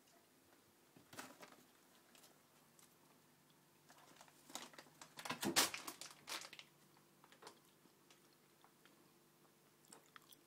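A cat rummaging in a kitchen cupboard, crinkling and tearing at a food packet: a few light knocks about a second in, then a louder burst of crinkling and crackling in the middle.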